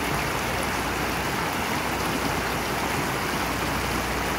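Fast, shallow mountain stream rushing over rocks, with a steady, even sound of water.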